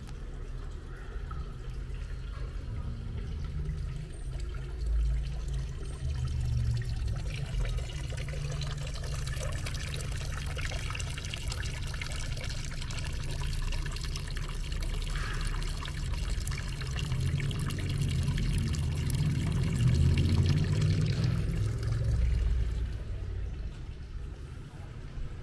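Running, splashing water that grows louder and then fades away, over a low steady rumble.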